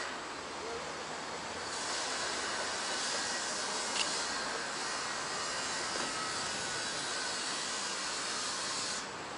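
Steam locomotive letting off steam in a steady hiss, which grows louder about two seconds in; a single sharp click sounds about four seconds in.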